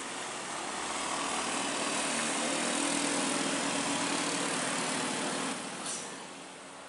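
Passing traffic: a car and small motorbike engines with tyre noise swell and then fade about six seconds in.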